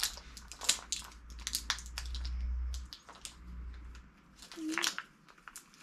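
Plastic toy slime tub and its wrapping being handled and opened: crinkling and quick clicking, busiest in the first two seconds, over a low handling rumble.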